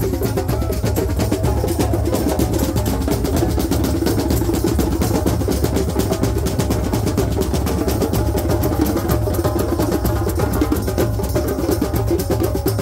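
Drum circle: many hand drums played together in a fast, dense, steady rhythm.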